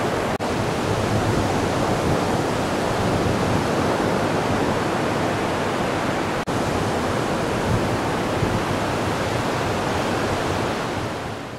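Ocean surf breaking on a beach: a steady rush of waves and wash. It drops out for an instant twice and fades away near the end.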